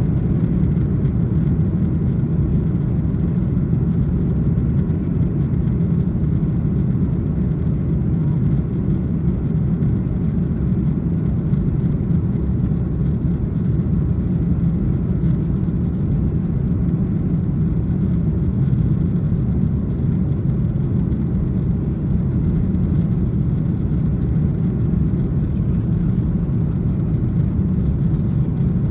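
Steady low rumble inside the cabin of an Airbus A330-300 taxiing, with the engines at taxi power; the level holds even and does not build as it would on the takeoff roll.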